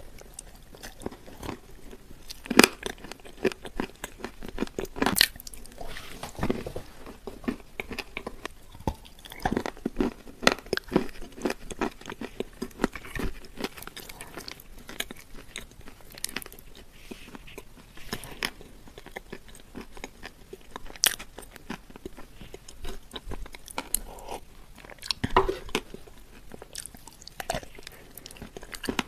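Close-miked biting and chewing of a soft, crumbly food eaten by hand, with wet mouth sounds and irregular small crunches and clicks; the sharpest come about two and a half seconds in, about five seconds in, and twice in the last third.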